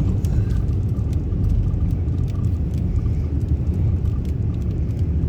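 Steady low rumble of a car driving on a snow-covered road, heard from inside the cabin: engine and tyre noise with no clear changes.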